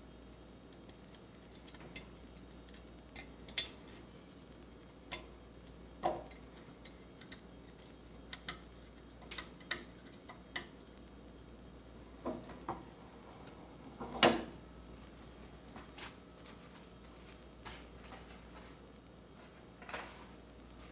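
Scattered metallic clicks and clinks of work on an engine cylinder head as valve springs, retainers and keepers are taken off, with one louder knock about two-thirds of the way through.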